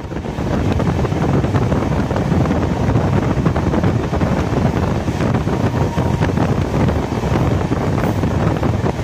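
Wind buffeting the microphone over the steady rumble of a passenger train running at speed, heard from on board the train.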